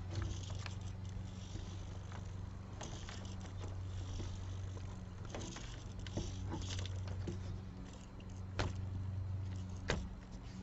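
Low, steady electric hum from the gimbal's continuous-rotation servo motors as they correct for the car being tilted by hand, with light clicks and rattles from the car being handled on a wooden table. Two sharper clicks come near the end.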